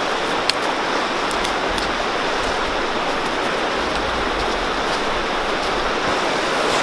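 Steady rush of water from a waterfall, with a faint click about half a second in.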